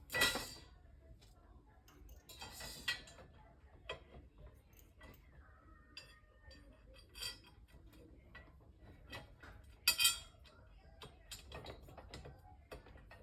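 Metal poles and screws of a steel-framed dresser being handled and fitted together: irregular clicks, clinks and knocks, with louder metal clatters near the start, about three seconds in and about ten seconds in.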